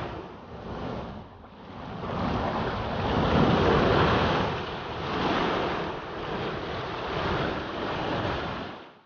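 Beach surf breaking and rushing ashore in several swelling and easing surges, with wind buffeting the microphone. It cuts off suddenly near the end.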